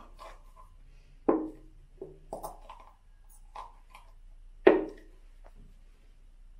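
Plastic hair-dye bottle and tint bowl being handled: small clicks and taps, with two sharp, hollow knocks, one about a second in and a louder one near five seconds.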